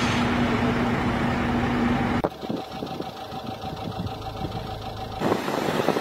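Construction machinery engines running on a building site, in three cut-together clips: a steady engine drone with a constant hum, a sudden drop to a quieter running sound about two seconds in, and louder engine noise near the end.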